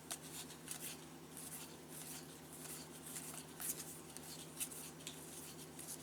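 Faint rustling and flicking of baseball trading cards being slid off the top of a pack one by one, in soft irregular scrapes.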